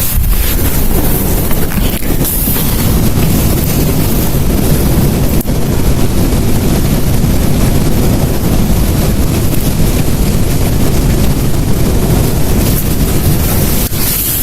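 Strong storm wind buffeting the microphone over heavy rain, a loud, steady low rumble of noise.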